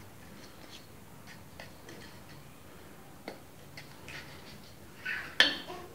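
Light, irregular clicks of a metal fork and spoon against a stainless steel bowl as a cookie is turned in melted dark chocolate, with a sharper clink near the end.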